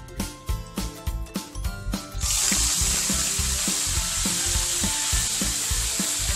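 Mussels in their shells hitting hot oil and sautéed onion, garlic and ginger in a pan, breaking into a loud, steady sizzle about two seconds in, over background music with a steady beat.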